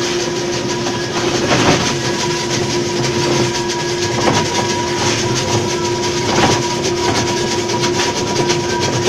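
Electric ice block crusher running: a steady motor hum under a continuous rattling clatter of ice, with a few sharper knocks.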